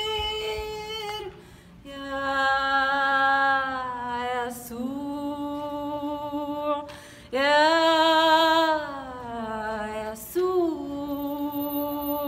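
A woman singing unaccompanied, in a string of long drawn-out phrases with vibrato and sliding pitch, broken by short breaths.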